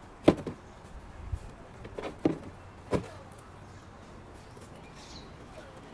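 Thin plastic bags rustling as they are pulled off freshly picked luffa gourds, with four sharp knocks as the gourds are handled and set down in a plastic tub, the first knock the loudest.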